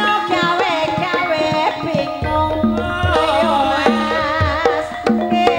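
Javanese ebeg accompaniment: gamelan with regularly struck pitched percussion and hand drums, under a singer's wavering, ornamented vocal line.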